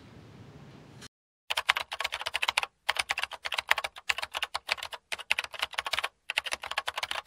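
Rapid, dense clicking like fast typing on a keyboard, in runs broken by short pauses. It starts about a second and a half in, after a faint hiss and a brief silence.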